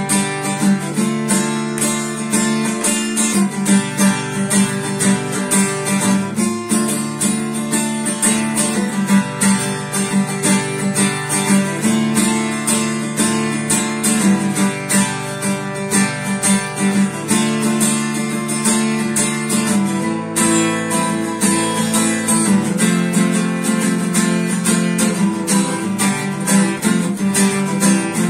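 Hofma cutaway steel-string acoustic guitar strummed fast and steadily, changing chords every few seconds.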